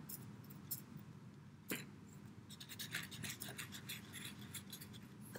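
Faint rubbing and scratching on paper: fingertips spreading a damp wash, then a charcoal stick scratched quickly across the paper in the second half, with a single light knock about two seconds in.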